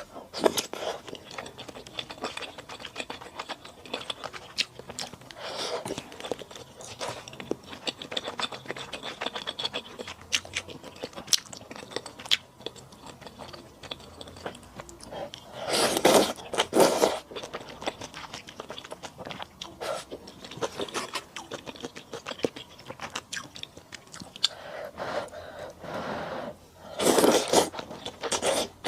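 Close-miked chewing and crunching of malatang with thick rice noodles, with many small clicks and scrapes. Two louder bursts about a second long come through, one near the middle and one near the end.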